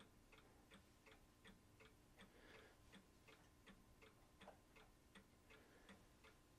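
Near silence: room tone with a faint, regular ticking, about three ticks a second.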